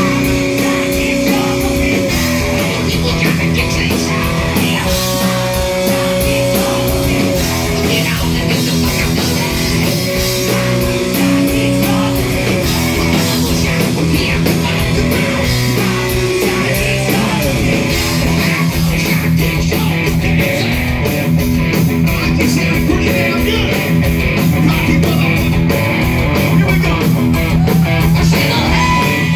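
Hard rock band playing live: electric guitars and drums, loud and steady.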